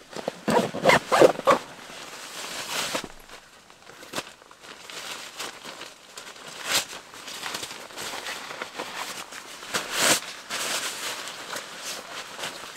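Nylon stuff sacks and backpack fabric rustling and swishing as gear is handled and packed, with a cluster of louder rustles about a second in and a few sharp swishes later.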